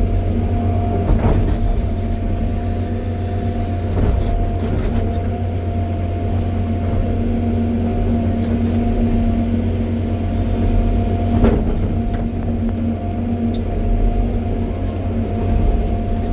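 John Deere 350G excavator's diesel engine running steadily, with a constant whine over it and a few sharp knocks.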